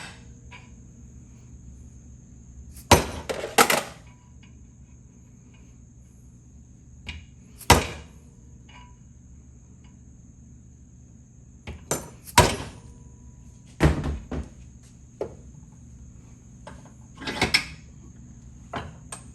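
A 4-pound dead blow hammer striking an old Lowell ratchet about a dozen times, in irregular single blows and quick pairs, to drive out a stuck internal part that is not budging.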